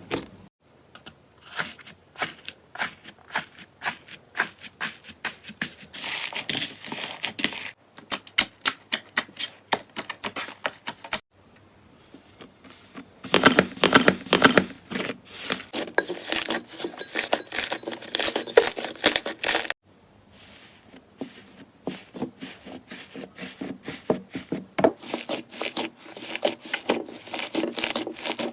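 Slime being squeezed and pressed by hand, giving rapid runs of crisp crackling clicks and pops, in several stretches split by short pauses.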